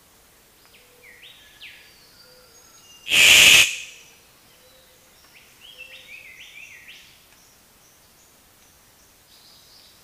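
A single loud rustling whoosh, under a second long, about three seconds in, from a male magnificent riflebird's wings in its courtship display. Around it are faint series of short rising chirps from small forest birds.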